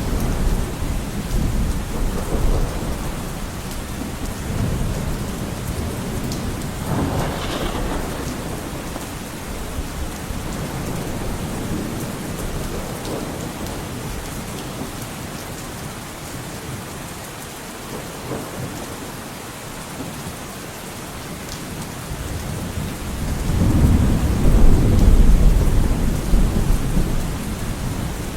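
Steady rain falling, with low rolling thunder underneath. The thunder swells to its loudest rumble about four seconds from the end.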